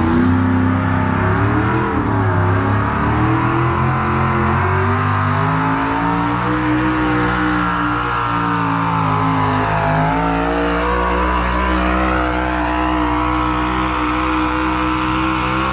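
A pulling vehicle's engine running flat out under load as it drags a weight sled down the track; the engine note sags about two-thirds of the way through, then climbs again.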